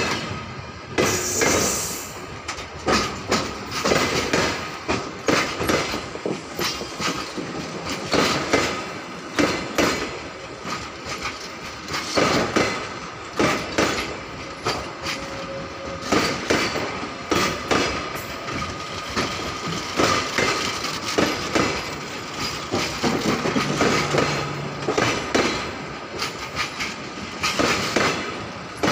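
Passenger carriages of a departing electric-hauled train rolling slowly past, their wheels knocking over rail joints in a steady, uneven clickety-clack, with a faint thin high tone from the wheels underneath.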